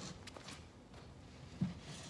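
A wooden-framed chicken plucker being set down on a concrete floor, landing with one short dull thump about one and a half seconds in, with the soft scuff of shoes on concrete around it.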